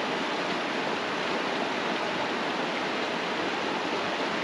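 River water rushing steadily over rocks and shallow riffles, an even hiss with no let-up.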